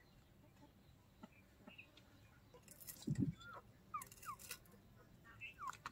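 Faint bird calls: a scattering of short chirps that rise and fall in pitch. There is a dull low thump about three seconds in, and a few light clicks and rustles.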